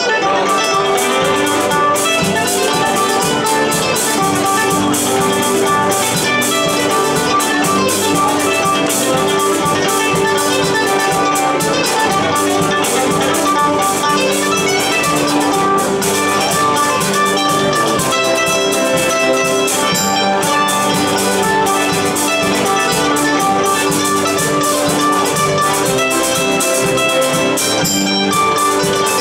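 Live country band playing an instrumental tune on mandolin, acoustic and electric guitars, with a drum kit keeping the beat.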